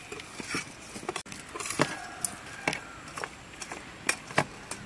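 Steel ladle tapping and scraping on a steel plate as whole black peppercorns and cumin seeds are tipped into a steel mixer-grinder jar: scattered light clicks and clinks, about a dozen, spread irregularly.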